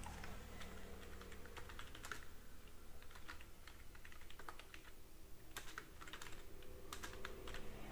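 Computer keyboard typing, faint, with irregularly spaced keystrokes.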